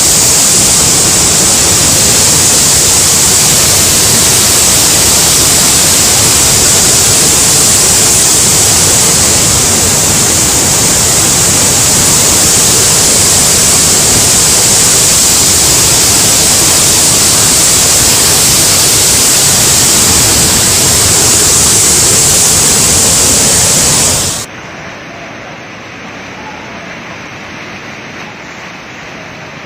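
Loud, steady rush of water in a heavy rainstorm. It cuts off abruptly about 24 seconds in, and a much quieter, duller rush follows.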